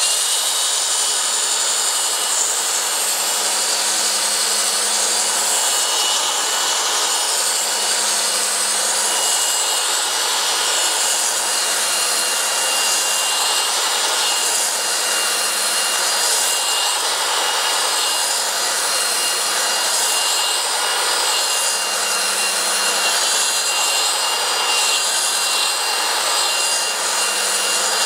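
Skil 3 by 18 inch belt sander with an 80-grit belt running steadily, sanding a scarf bevel into the ends of 4 mm okoume plywood strips. A thin high whine rides over the grinding, and the sound rises and falls slightly as the sander is worked back and forth across the wood.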